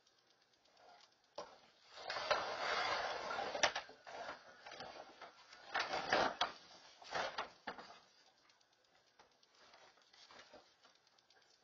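Black bears knocking about a plastic wheeled trash cart and rummaging through garbage: a long stretch of scraping and rattling about two seconds in, with sharp knocks, then shorter bursts of scraping around the middle.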